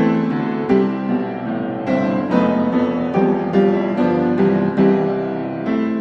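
Background piano music, with notes struck at an unhurried, even pace.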